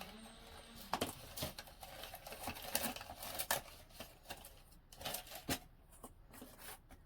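Pencil writing on a plastic seed label: short, irregular scratching strokes and small taps.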